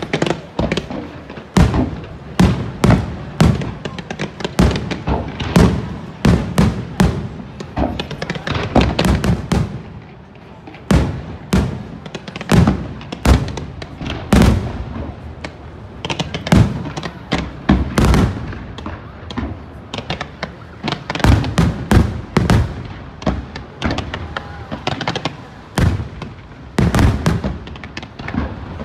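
Aerial fireworks launching and bursting in a fast, irregular run of bangs, several a second, with a few short lulls.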